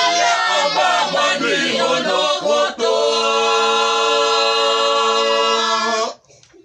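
Mixed group of men, women and children singing a cappella in parts, ending on a long held chord that cuts off sharply about six seconds in.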